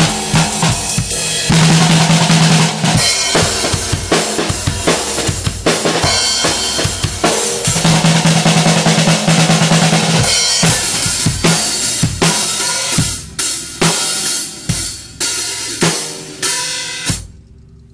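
A drum kit played hard and fast: bass drum, snare and tom strokes under crashing cymbals, with two sustained rolls of a couple of seconds each. The hits grow sparser over the last few seconds and stop just before the end.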